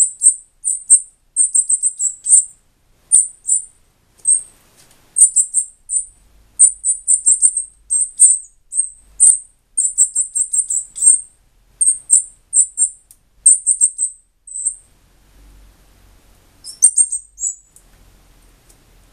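A fledgling northern cardinal begging while being hand-fed, giving rapid clusters of short, very high-pitched chirps. It falls quiet about fifteen seconds in, apart from one short burst near the end.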